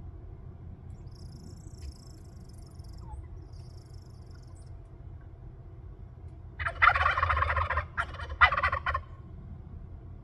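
Wild turkey gobbling: a rapid rattling gobble about six and a half seconds in, lasting just over a second, followed by a shorter second burst.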